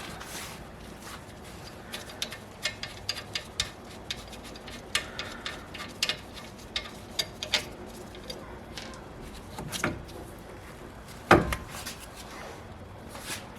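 Brake caliper and pads being handled, giving a string of light metallic clicks, taps and scrapes, with two louder knocks about ten and eleven seconds in.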